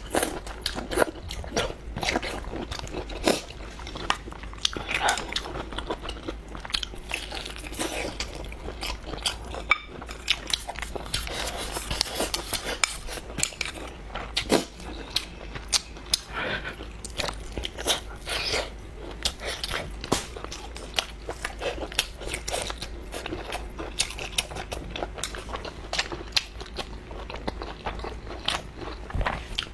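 Close-miked eating: a person biting, chewing and crunching food, a dense, irregular run of small crunches and clicks.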